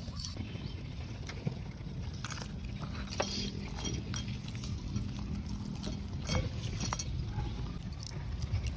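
Cooked crab shells being cracked and picked apart by hand, a few sharp clicks and cracks with small clinks against a ceramic plate, over a steady low rumble.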